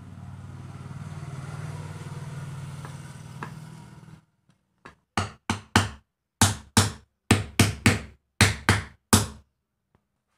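A hammer tapping the end cover of a tractor starter motor into place: about a dozen sharp metal blows, roughly three a second in short groups, starting about five seconds in. Before them a steady engine hum runs and fades out about four seconds in.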